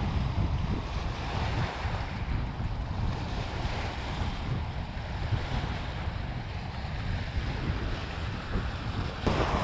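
Wind buffeting the microphone over small waves washing against shoreline rocks, with a sharp click near the end.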